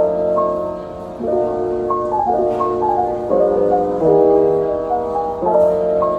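Background piano music: soft sustained chords that change about every second and a half, with a simple melody of short higher notes on top.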